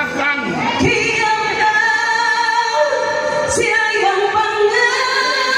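A woman singing long held notes in a trembling voice.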